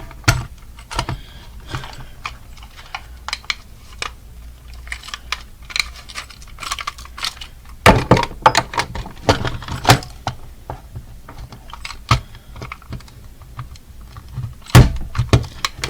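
Irregular rapid clicking and clattering of hard objects, with louder knocks about 8, 10, 12 and 15 seconds in.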